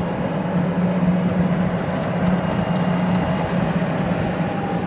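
Golf cart driving along: a steady low hum from the drive with even road and wind noise.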